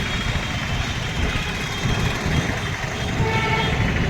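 Steady motor-vehicle and road traffic noise, with a brief faint tone a little past three seconds in.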